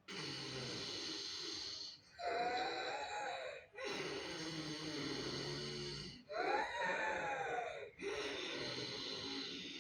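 Ujjayi pranayama breathing: a woman drawing breath in and out through a narrowed throat with a deliberate snore-like rasp. The breaths last about two seconds each with short pauses between, and every other breath carries a hoarse tone that rises and falls.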